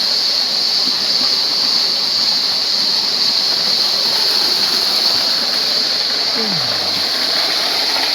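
Waterfall's water rushing steadily.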